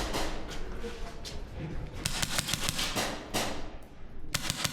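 Airsoft guns firing rapid strings of shots, with a dense run about two seconds in and another short burst near the end.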